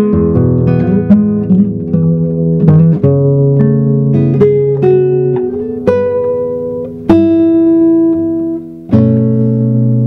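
Nylon-string classical guitar played fingerstyle: plucked melody notes over a bass line. A strong chord is struck about seven seconds in and another about nine seconds in, each left to ring.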